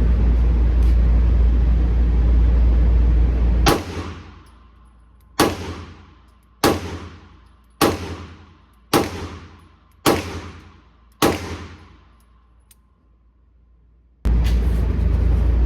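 Seven handgun shots fired one after another, a little over a second apart, each a sharp crack with a short echoing tail. A steady low rumble is heard before the first shot and comes back near the end.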